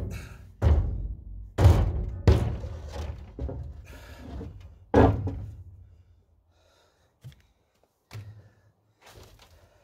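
A series of heavy thuds and knocks. About half a dozen loud ones in the first five seconds each die away quickly, followed by a few faint ones.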